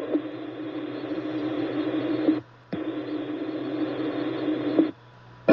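Fireground radio channel keyed open with no voice: a steady hiss and hum that cuts out abruptly twice as the squelch closes, with a click as it reopens.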